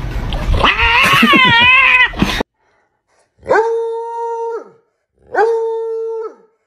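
A hound-type dog howling twice, each a long, steady howl of about a second that sags in pitch as it ends. Before it, over background noise, comes a short wavering, warbling cry.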